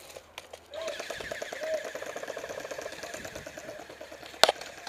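Airsoft electric gun (AEG) firing on full auto: a fast mechanical rattle of the gearbox that starts about a second in and keeps going for several seconds. A single sharp click near the end.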